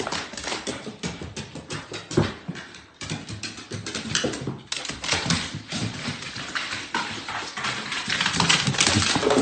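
A dog going down hardwood stairs: a quick, uneven run of claw clicks and paw knocks on the wooden steps, growing somewhat louder near the end.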